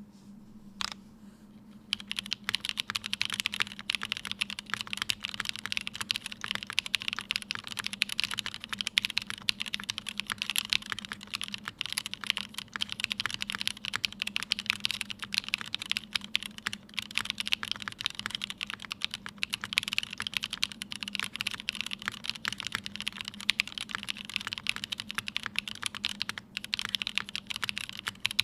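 Typing on a Tomo mechanical keyboard with lubed Cherry MX Black linear switches (Kailh stems) in a top-mounted aluminium plate and GMK ABS keycaps. A single keystroke comes under a second in, then a steady run of fast keystrokes starts about two seconds in.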